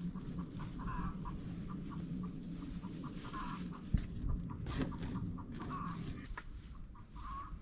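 Hens clucking: short calls repeated at an uneven pace, over a steady low rumble.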